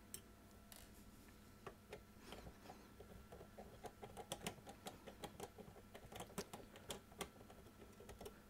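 Faint, irregular metallic clicking of a 3/16 nut driver turning hex-head screws out of the back of a car radio's sheet-metal chassis, sparse at first and busier after a few seconds.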